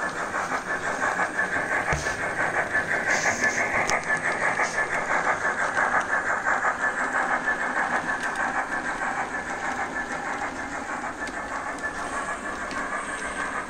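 OO gauge model steam locomotive and coaches running along the track: a steady mechanical running noise with a quick regular pulse of about four beats a second, getting a little quieter in the second half.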